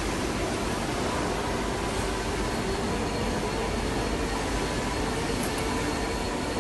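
Veneer-processing machinery running steadily, an even mechanical noise with a faint high whine.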